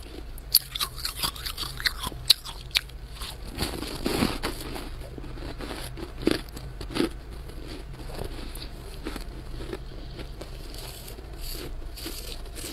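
Thick frost in a chest deep freezer being scooped and crushed by a plastic-gloved hand: a quick run of sharp crackling crunches in the first few seconds, then a few softer, duller crunches and quieter scraping, over a steady low hum.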